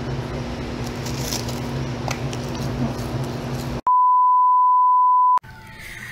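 A colour-bars test beep: a single steady 1 kHz reference tone lasting about a second and a half, cutting in and off abruptly. It is louder than the steady low background hum that comes before it.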